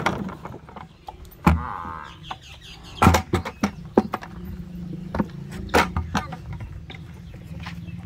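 Irregular knocks and thuds at a wooden feed trough as potatoes and a feed tin are handled and water buffaloes feed at it, the loudest knocks about a second and a half and three seconds in.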